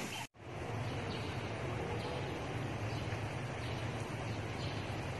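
Steady outdoor background noise with a low hum, after the sound cuts out briefly near the start.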